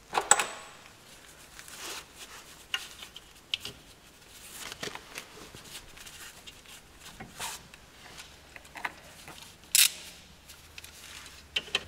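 Scattered light clicks and metal taps of a brake caliper and its greased Allen guide bolts being handled and fitted, with a sharper click just after the start and another about ten seconds in.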